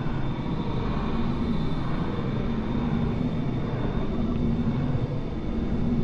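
Experimental noise music: a dense, steady rumbling noise drone weighted low, with a thin high whine held above it.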